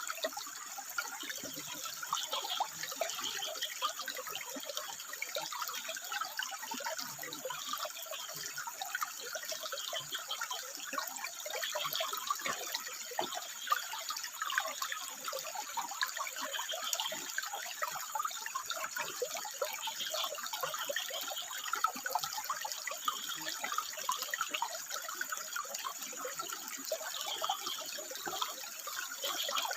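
Water running and splashing over rocks, with frogs calling in short repeated bouts every second or two above the steady flow.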